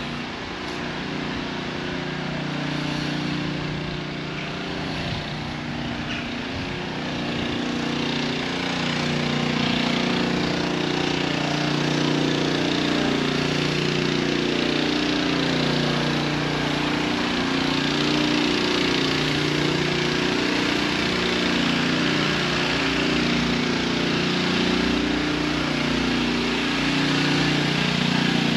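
An engine running steadily, its pitch shifting slightly, growing louder from about eight seconds in.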